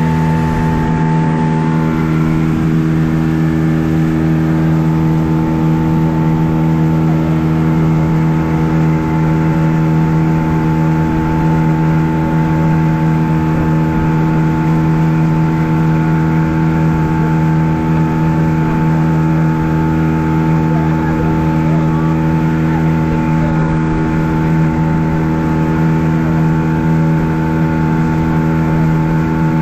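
Motorboat's outboard engine running at a steady cruising speed, one unchanging pitch over a constant rushing noise.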